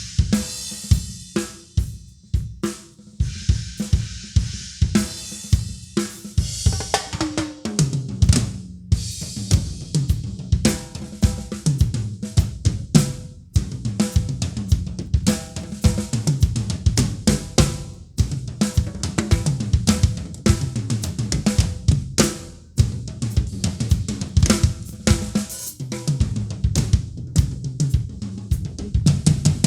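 Drum kit played continuously: bass drum, snare and hi-hat strikes, with cymbal crashes ringing in the first few seconds.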